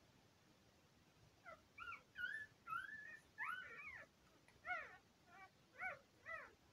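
Two-day-old Border Collie puppies squealing: a string of short, high, rising-and-falling squeaks and whines, starting about a second and a half in.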